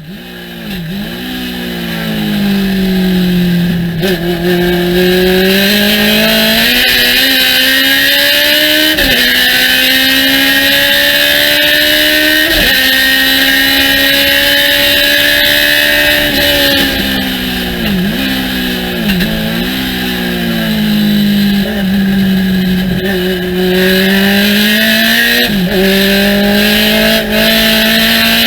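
Thunder Roadster race car engine at full throttle on a lap, heard on board. The pitch climbs through the gears and drops sharply at each upshift, about four and nine seconds in and again near twelve. It dips and recovers several times later on as the driver brakes and downshifts for corners. A steady high hiss runs under it.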